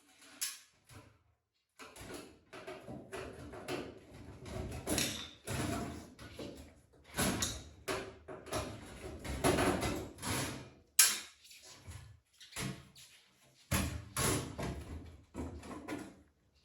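Irregular knocking, clattering and rubbing of things being handled, in short bursts with brief pauses, with one sharp knock about eleven seconds in.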